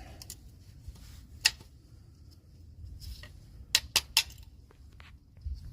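Sharp metallic clicks of a tool working a small C-clip off the brake shoe's lever arm: one about one and a half seconds in, then three quick ones close together later on.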